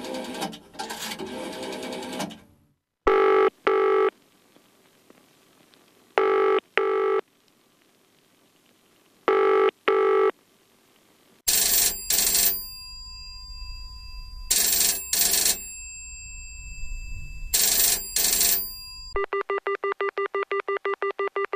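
A telephone ringing in the British double-ring pattern, a pair of short rings about every three seconds, after a dense noisy sound that stops about two seconds in. Around halfway a louder, brighter ring takes over with a low rumble under it. Near the end it changes to a fast trilling buzz of about ten pulses a second.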